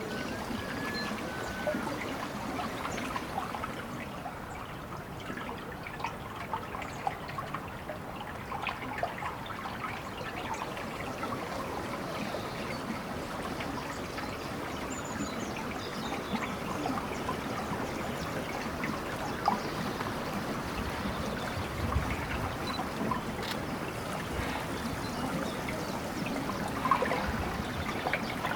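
Water trickling steadily, with many small splashes.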